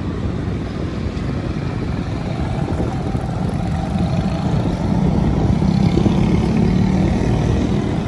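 City street traffic: the engine of a large coach bus and motorcycles running close by as a steady low rumble, growing louder about halfway through as the bus turns toward the microphone.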